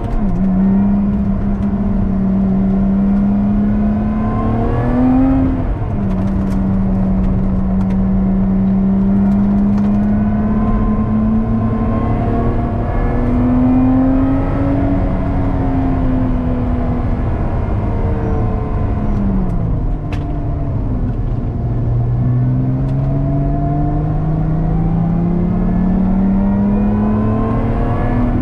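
Lotus Exige 410's supercharged V6 engine heard from inside the cabin, driven hard on a track. The note climbs, drops at an upshift about five seconds in, sags as the car slows around the middle, then climbs steadily again near the end.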